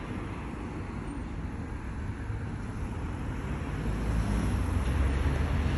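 Steady low rumble of road traffic, growing louder in the second half.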